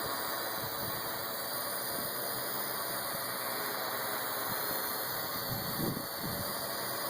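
Parrot AR.Drone 2.0 quadcopter in flight, its four electric rotors giving a steady high whine. A few low thumps come about five and a half to six and a half seconds in.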